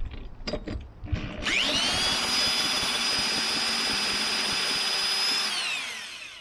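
A few handling knocks, then an electric power drill spins up with a rising whine, runs at a steady high pitch for about four seconds and winds down near the end.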